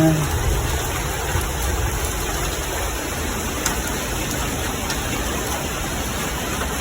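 Heavy thunderstorm rain falling steadily, a constant even hiss.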